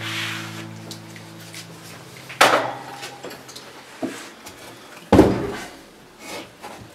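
A heavy lithographic stone slab knocking against a grinding sink as it is handled: two loud clunks, about two and a half and five seconds in, with a lighter knock between them.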